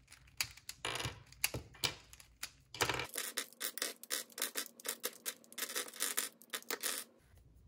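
Plastic pieces of a Meilong M 3x3 speedcube clicking and rubbing as the cube is taken apart, a quick run of small clicks that stops about seven seconds in.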